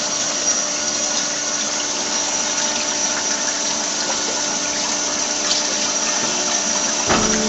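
Metal-cutting band saw machine running steadily: a continuous hiss with a few held hum tones. A knock comes just before the end, and a lower hum sets in.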